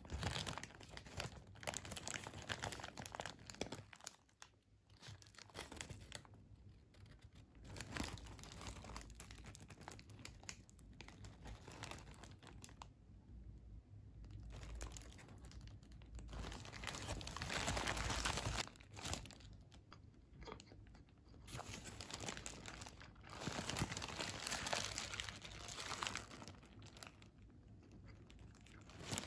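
Paper burger wrapper crinkling and rustling in irregular bursts as a wrapped fried-chicken burger is handled and pulled apart, with a few short lulls.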